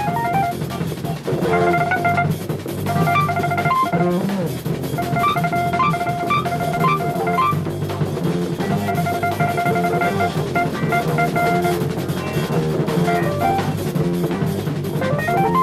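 Jazz-fusion quartet of drum kit, bass, electric guitar and keyboards playing live. Drums and bass run underneath while a lead line plays short phrases of repeated high notes, with brief gaps between phrases.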